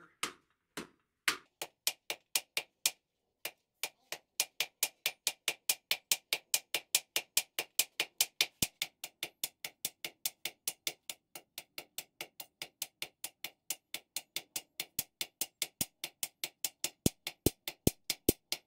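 Hammer blows on red-hot steel on an anvil: a few spaced strikes, then a steady run of about five blows a second as the bar is forged.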